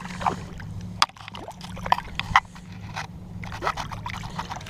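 Shallow bay water sloshing and splashing around someone wading, with irregular small splashes over a steady low hum.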